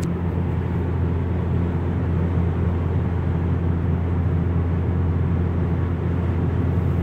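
In-cabin sound of a 2015 Chrysler 200S's 3.6 Pentastar V6, with its muffler deleted, cruising at 70 mph: a steady low exhaust hum under road noise. It is mellow, with no drone.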